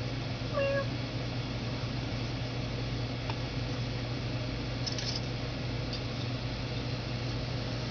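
Steady low hum of room noise, with a brief high-pitched call about half a second in and a few faint light ticks around the middle.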